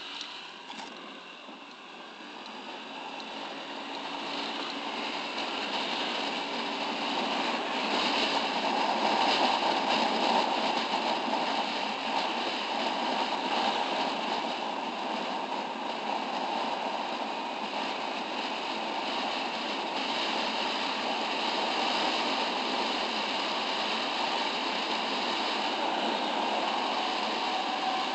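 Wind and road noise on a moving motorcycle, rising as the bike picks up speed over the first several seconds and then steady.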